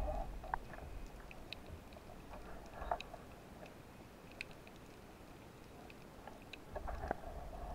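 Underwater ambience picked up by the diver's camera: scattered sharp clicks and crackles, with a few faint low rumbles of water moving against the housing, strongest near the start and near the end.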